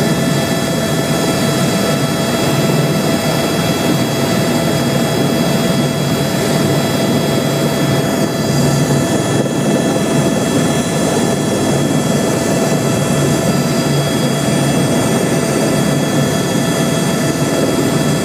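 Turbine helicopter heard from inside its cabin: a steady engine whine of several high tones over a dense rotor and engine rumble, holding constant.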